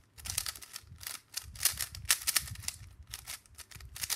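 YuXin Little Magic 3x3 speed cube being scrambled by hand: its plastic layers are turned quickly, giving an irregular run of clicks and clacks, several a second.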